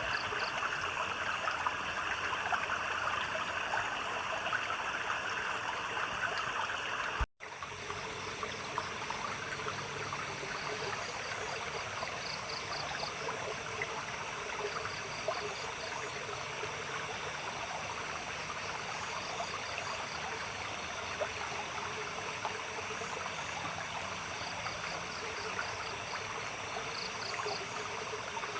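A small stream trickling and babbling steadily, with insects chirping in short pulsed trains in the background. The sound cuts out for an instant about seven seconds in.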